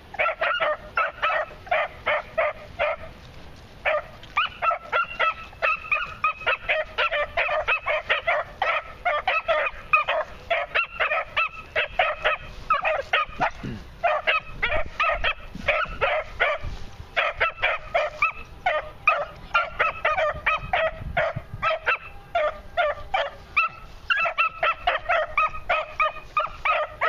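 Beagle pups yelping on a scent trail in quick, high-pitched cries, about four a second, with a couple of short pauses. This is the trail voice of young hounds newly started on game.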